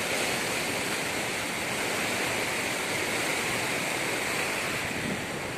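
Floodwater of a swollen river rushing and churning in white water past a concrete causeway, heard as a steady, unbroken rushing noise.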